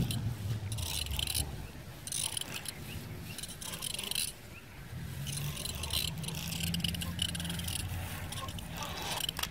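Wind rumbling on the microphone outdoors, with a few short bursts of hissing rustle.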